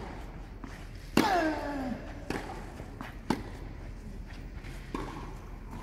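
Tennis rally on clay: four sharp tennis-ball hits about a second apart, the first, about a second in, with a player's falling grunt as he strikes the ball.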